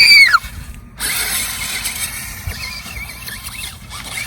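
A child's high-pitched excited squeal, rising then falling, in the first half-second. After a short pause comes a steady whirring noise from the small electric remote-control monster truck driving over grass.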